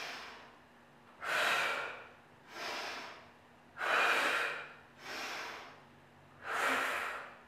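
A woman's audible yoga breathing, paced with the movement: three strong breaths, each followed by a softer one, about one breath every second and a half.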